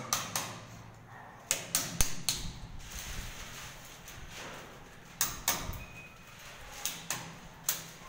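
Screwdriver tip scraping and tapping inside a flush-mounted electrical switch box in the wall, clearing out dust and debris: irregular clicks and scrapes, in a cluster around two seconds in and another from about five seconds in.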